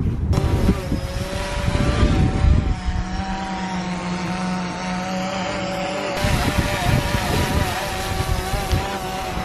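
DJI Phantom 4 quadcopter's motors and propellers spinning, a steady hum of several pitches that wavers slightly, with bouts of low rumble.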